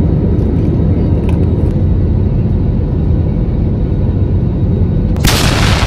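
Airliner cabin noise on the approach: a steady low rumble of engines and airflow heard from a window seat. About five seconds in, a much louder rushing hiss cuts in suddenly.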